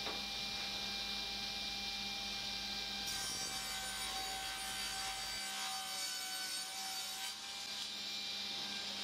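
Sliding-table panel saw running, its blade cutting through a sheet of plywood. A steady whine, with a harsher, higher cutting sound from about three seconds in until about seven seconds in, as the blade goes through the sheet.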